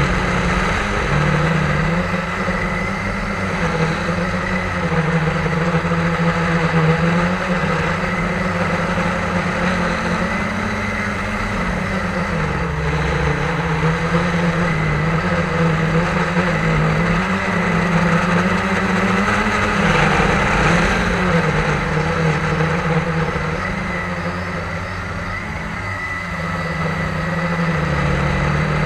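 Drone's motors and propellers buzzing steadily, the hum wavering a little up and down in pitch.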